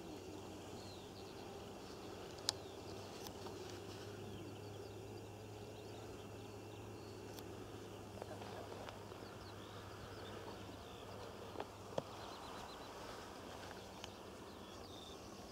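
Open-field ambience: many faint short bird chirps over a steady low hum, with two sharp clicks.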